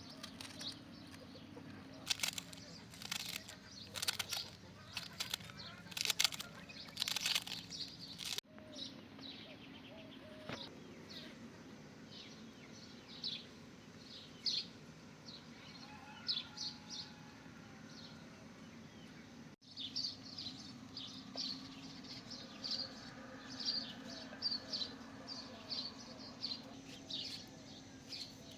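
Small birds chirping in short repeated calls. In the first third there is a run of sharp, loud rustling strokes.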